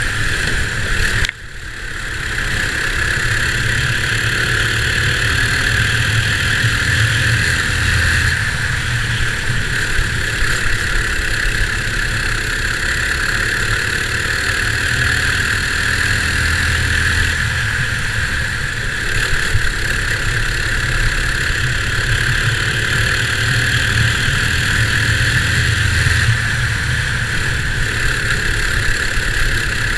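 Racing go-kart's sealed Predator single-cylinder four-stroke engine running hard at racing speed, its pitch rising and falling with the throttle. The sound drops suddenly and briefly about a second in.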